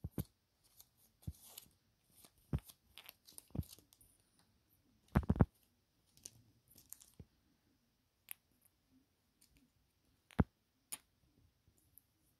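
Scattered small clicks and taps of tiny plastic Mini Brands miniatures being handled and set down, with two louder knocks about five and ten seconds in.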